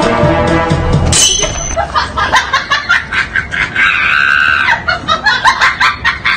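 Music with a quick beat of sharp hits, changing abruptly about a second in, with a short high held note about four seconds in.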